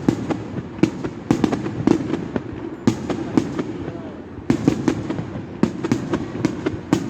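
Aerial fireworks bursting: many sharp bangs and crackles in quick, irregular clusters, several a second at times.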